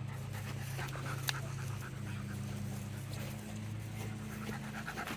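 A puppy panting in quick short breaths over a steady low hum, with a single sharp click just over a second in.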